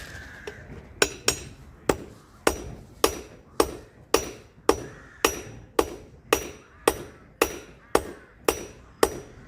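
Blacksmith's hammer striking on an anvil in a steady rhythm of about two blows a second, each blow ringing; the hammering starts about a second in.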